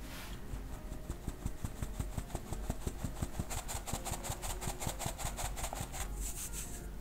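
Wire-mesh kitchen sieve being tapped rapidly by hand, a fast even rattle of about eight to ten taps a second as cocoa powder and flour sift through; it stops near the end.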